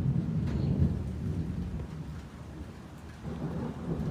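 Thunder rumbling, fading away over the first few seconds, then a second, weaker rumble rising near the end.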